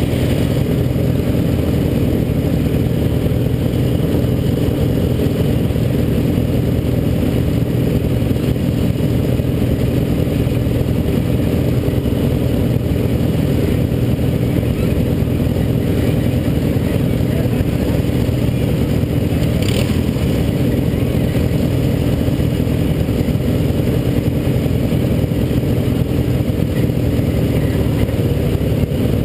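Racing lawnmower engines idling: a steady, low, even drone without revving.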